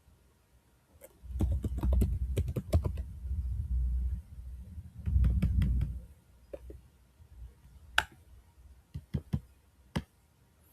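Typing on a computer keyboard: two quick runs of keystrokes with a low thud under them, then a few separate clicks.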